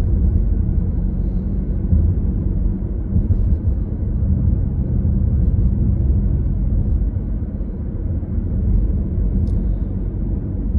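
Low, steady rumble of a car driving at a constant speed, heard from inside the cabin: road, tyre and engine noise with no change in pitch.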